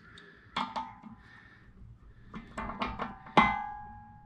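Steel wrench clinking against the die shaft of a DRDT-2 dimpling tool while the dimple die's depth is being adjusted. There are two quick clinks about half a second in, then a cluster of several, each ringing briefly like struck metal. The loudest comes about three and a half seconds in and has the longest ring.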